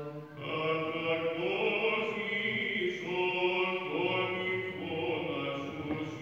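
Byzantine chant of Orthodox vespers: monks' male voices sing a slow melody in long held notes over a steady low drone (ison).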